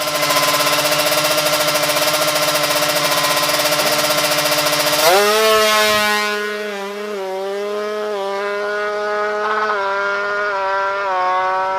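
Tuned Kawasaki Ninja two-stroke racing motorcycle engine, bored out to 155cc, running hard at high revs. About five seconds in, the pitch jumps up and then moves in a series of small steps.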